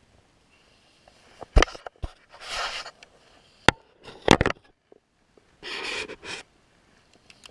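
Handling noise on a plastic fishing kayak: several sharp knocks and clunks of gear, and two longer rustles of clothing brushing close to the mounted camera, the second about six seconds in.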